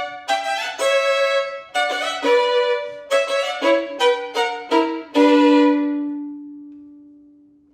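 Solo violin, its bow rosined with CECILIA "Solo" rosin, playing a quick run of bowed notes. About five seconds in it ends on a long held low note that rings on and fades away.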